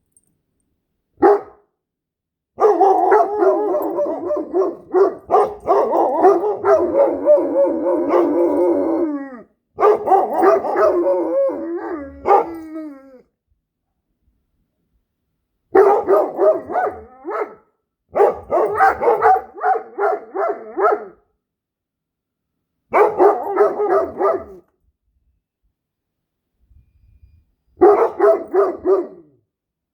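A Great Dane and a Standard Poodle howling in wavering, drawn-out bouts with pauses between them. The longest bout lasts about seven seconds near the start, followed by five shorter ones of one to three seconds.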